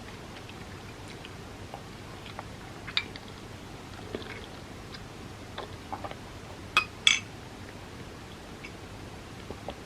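Close-miked eating sounds: soft chewing with small wet mouth clicks scattered throughout, and two louder sharp clicks close together about seven seconds in.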